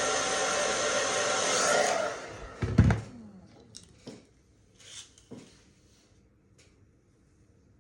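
Hand-held hair dryer blowing steadily, switched off about two seconds in and winding down with a falling whine. A loud thump follows just before the three-second mark, then a few light knocks and taps of things being handled.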